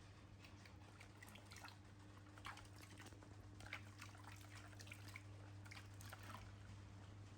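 Near silence: faint, scattered wet clicks and smacks of a baby monkey chewing mangosteen, over a low steady hum.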